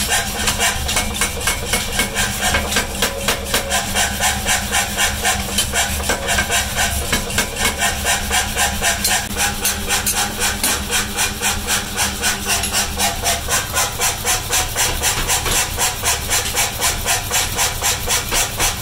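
Mechanical power hammer forging a red-hot steel axe head, its ram striking in rapid, evenly spaced blows over the steady hum of the machine's motor.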